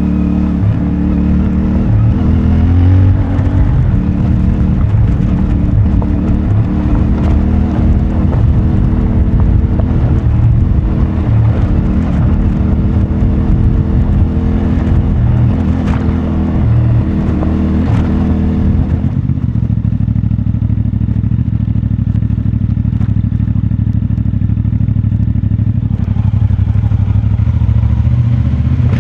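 CFMoto 450MT's parallel-twin engine with its stock exhaust, running at varying revs on a rough dirt track, with scattered knocks and rattles. About two-thirds of the way in, the engine settles to a steadier, lower note.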